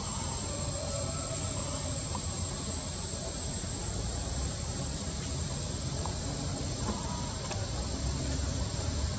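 Steady outdoor ambience: a high, even insect drone, like crickets or cicadas, with a low rumble underneath.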